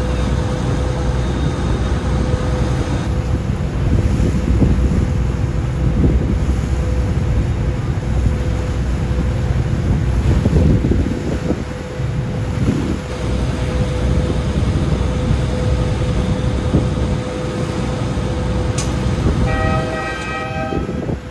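River boat's engine running steadily: a low rumble with a constant whine, over the wash of water along the hull. Near the end comes a short pulsing pitched tone.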